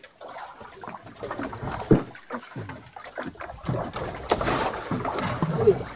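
Irregular knocks and clatter aboard a small fishing boat, with a short rush of noise about four seconds in.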